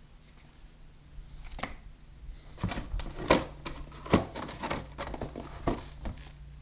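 A dozen or so irregular sharp clicks and knocks over about four seconds, like hard objects being handled, over a low steady hum.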